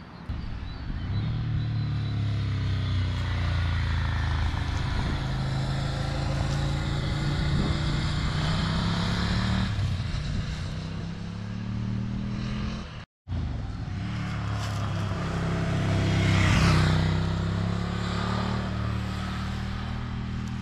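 Ducati Scrambler Cafe Racer's air-cooled 803 cc L-twin engine and exhaust as the bike rides past on the road. The revs climb and drop back through gear changes. After an abrupt cut, a second pass grows louder, peaks and falls in pitch as it goes by.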